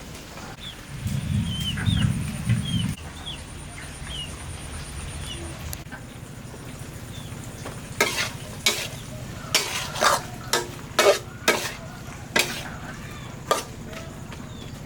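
Food frying in a pan, stirred with a utensil that knocks sharply against the pan about a dozen times in the second half. A low rumble in the first few seconds and a few short high chirps early on.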